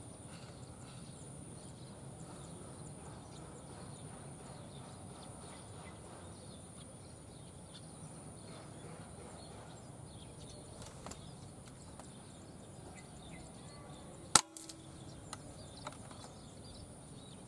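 A single shot from a PCP air rifle (Indonesian 'uklik'), one sharp crack near the end over a steady outdoor background with a faint high whine.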